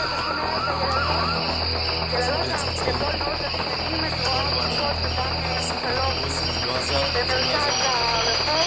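A dense chorus of crickets trilling without a break, high-pitched and steady, over a low steady hum.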